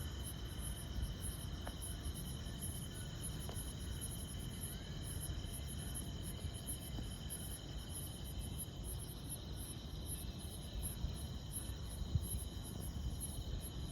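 Insects, likely crickets, chirping steadily: a very high chirp repeating rapidly and evenly over a continuous high trill. A low, steady rumble of noise runs underneath.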